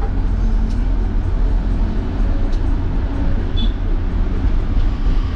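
Small bus running with a steady low engine rumble and a few faint clicks and rattles.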